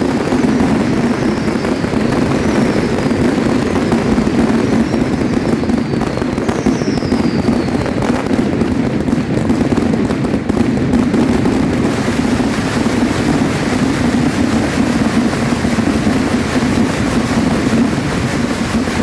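Dense fireworks barrage: rapid bangs and crackle run together without a break. Several falling whistles come in the first half.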